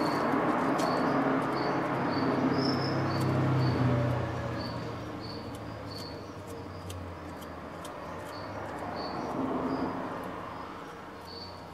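Crickets chirping steadily, short high chirps about one to two a second. Scattered faint clicks and a broad rushing noise also run through, louder in the first four seconds and again around nine to ten seconds.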